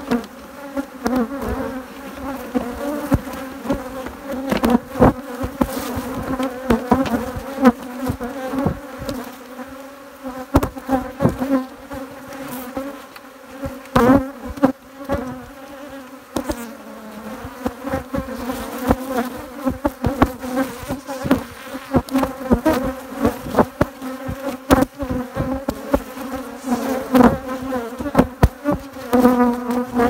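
Many honeybees buzzing around an open hive: a steady, dense hum with its pitch wavering slightly as bees pass close. Scattered short knocks and bumps run through it.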